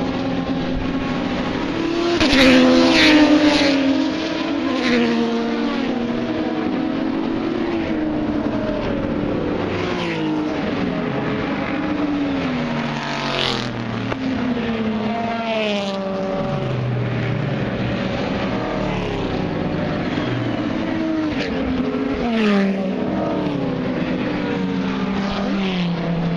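Endurance race cars passing one after another along the fence, several engines at once, each engine note dropping in pitch as a car goes by. Louder passes come a couple of seconds in and again near the end.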